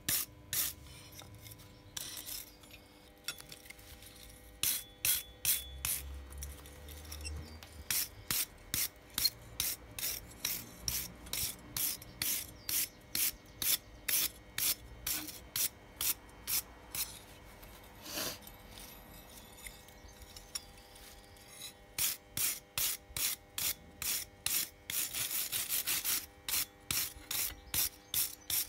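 Steel wire brush scrubbing a small forged iron piece held on an anvil, in short scraping strokes about two a second, with a pause partway through and a quicker flurry near the end. The brushing clears forge scale off the freshly forged metal.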